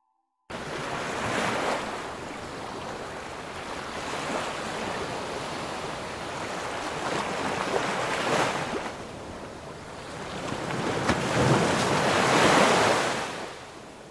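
A rushing noise, like surf washing in, starts suddenly and swells and eases about four times. It is loudest near the end, then fades away.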